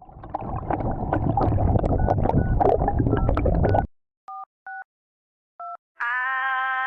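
A loud rough, crackling noise that cuts off abruptly, then three short telephone keypad (DTMF) tones. A steady musical tone with many overtones starts near the end.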